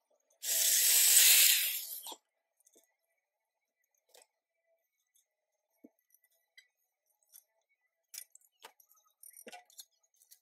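A brief harsh, hissing burst of a tool working the sheet metal of a tool box lid held in a bench vise, lasting under two seconds. It is followed by scattered light clicks and knocks of metal being handled, thicker near the end.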